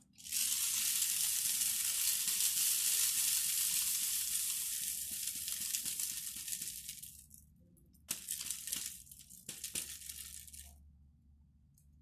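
Homemade rain stick, a paper-wrapped tube made from recycled materials, turned upright so its filling trickles down inside in a steady rain-like hiss that slowly fades out over about seven seconds. Two shorter, fainter trickles follow near the end.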